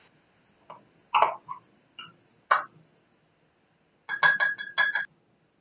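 A few scattered plastic clicks and knocks from a small food chopper being handled and opened. Then a quick run of clinks, several taps in about a second near the end, on a glass mixing bowl, which rings.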